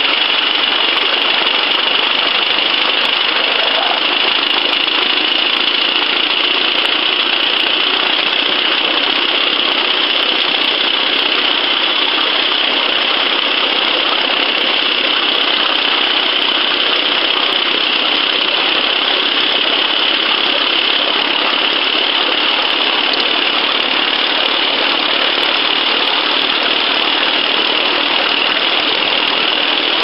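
A stationary miniature steam locomotive raising steam, giving a loud, steady rushing hiss.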